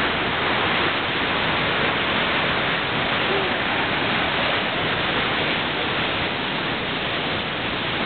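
Waterfall close by: a large volume of water pouring over rock in a steady, unbroken rush.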